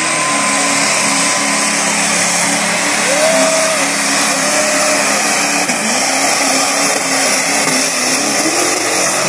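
Twin-turbocharged diesel pickup truck engine running flat out under full load while it drags a pulling sled down the track. The commentators put its boost at around 80 to 100 psi. The sound is loud and steady, with no let-up.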